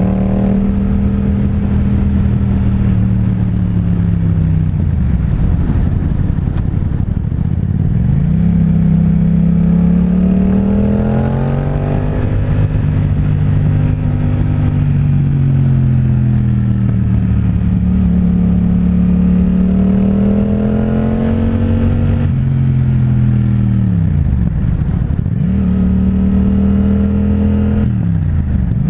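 Yamaha FZ-07's parallel-twin engine breathing through a Two Brothers full exhaust system under way, its note rising and falling with throttle and gear changes. Twice the revs drop steeply and then climb again, once about five seconds in and once near the end.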